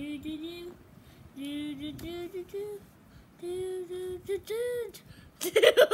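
A child singing to themselves in short phrases of held, stepping notes. Near the end a much louder voice breaks in.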